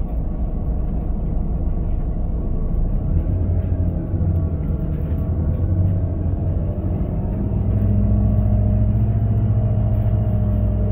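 Volvo B7 bus's six-cylinder diesel engine running under way, heard from on board as a steady low rumble. The engine note grows louder and more even about two-thirds of the way through.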